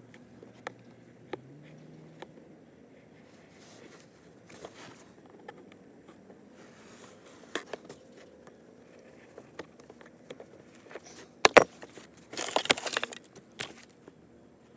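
Hand-cutting a rubber gasket pad: scattered small clicks and snips of handling, then near the end a sharp snap followed by about a second of crackly scraping.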